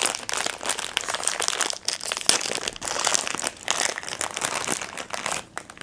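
Crinkly foil wrapper of a blind-box vinyl figure being torn open and crumpled by hand: rapid, irregular crackling that stops just before the end.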